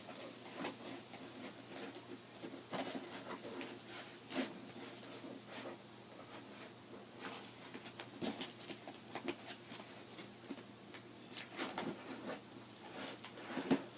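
Scattered scratching, rustling and light clicks of a cardboard shipping box being worked open by hand.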